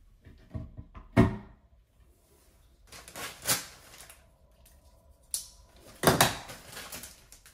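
Hard plastic knocks and clicks from handling a new plastic toilet seat on the bowl, the loudest about a second in. Then a small plastic bag of mounting screws and nuts crinkling, twice, with a click between.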